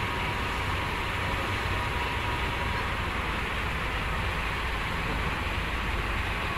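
Heavy equipment's diesel engine running steadily with a low rumble, with a faint whine in the first few seconds.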